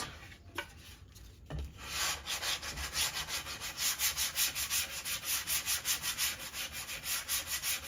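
180-grit sandpaper rubbed by hand along the rough edge of a wooden ceiling fan blade in quick back-and-forth strokes, about three a second. The strokes start about two seconds in, after a quiet moment. The sanding is smoothing the blade's rough, dust-catching finish.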